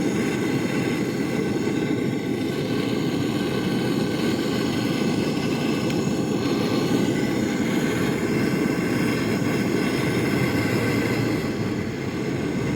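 Refrigeration vacuum pump running steadily, evacuating the fridge's sealed system before the refrigerant gas is charged.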